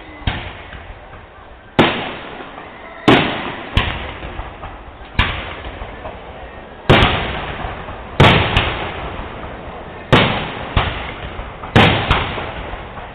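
Aerial firework shells bursting one after another: about a dozen sharp bangs at uneven one-to-two-second intervals, each trailing off in a short rumbling decay.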